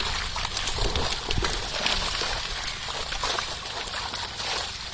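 Water sloshing, with irregular small splashes.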